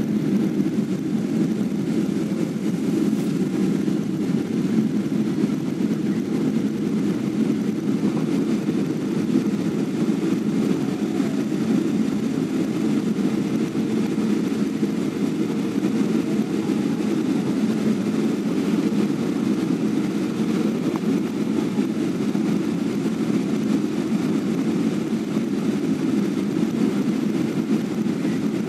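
Steady jet airliner cabin noise, the engines and rushing airflow heard from inside the cabin at a window seat during the descent, even and unchanging with most of its weight in the low-mid range.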